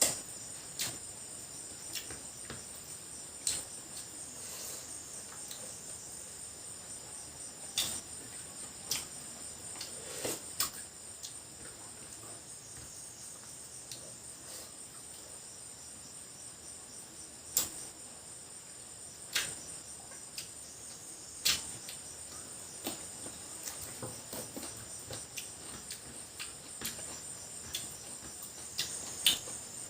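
Crickets chirping steadily in a high, even drone, with scattered sharp clicks and cracks from eating crab, about one every second or two.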